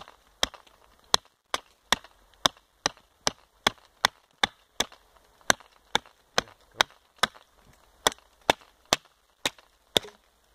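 Small plastic-handled hatchet chopping a thin branch with rapid, light, evenly paced chops, about two and a half strikes a second, each a sharp crack of blade into wood.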